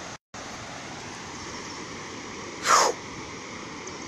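Steady rushing noise of floodwater flowing in the river, cut out for a moment just after the start. About two and a half seconds in there is one brief loud burst that falls in pitch.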